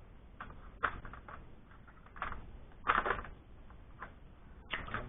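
Irregular clicks and knocks of an airsoft sniper rifle being handled as its scope is taken off, about half a dozen, the loudest cluster about three seconds in.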